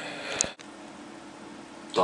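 Quiet room tone with a faint steady low hum, after a brief click about half a second in; a man's voice starts at the very end.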